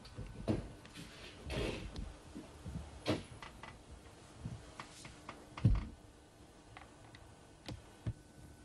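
Scattered knocks, clicks and rustling from a film crew moving and handling equipment on a small set. The loudest is a single thump about six seconds in, with two light clicks near the end, over a faint steady hum.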